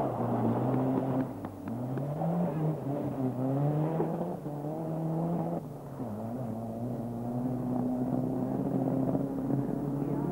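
Rally car engine revving hard on a loose-surface stage, its pitch climbing repeatedly as it accelerates through the gears, then running at a steadier pitch. A few sharp clicks come in about one and a half seconds in.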